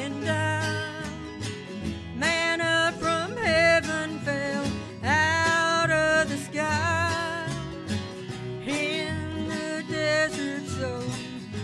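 Bluegrass-style gospel music: acoustic guitar accompaniment under a melody of long, wavering held notes.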